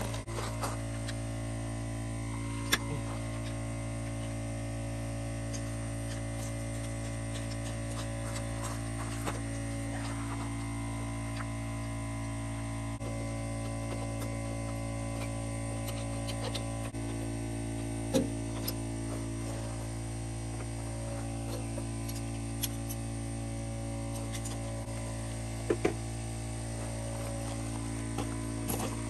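A steady hum of several fixed tones, with a few sharp metallic clicks and clinks as the carburetor is worked loose and lifted off a small garden tractor engine.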